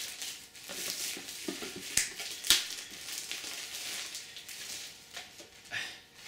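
Plastic shrink wrap being torn and crinkled off a clear plastic box: crackling rustles throughout, with two sharp snaps about half a second apart a couple of seconds in.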